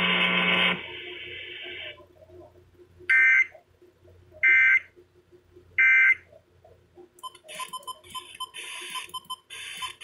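Midland weather radio's speaker sounding the three short EAS end-of-message data bursts, warbling two-tone squawks about 1.4 s apart, that close an alert broadcast. Near the end, short snatches of FM radio sound as the radio is tuned from station to station.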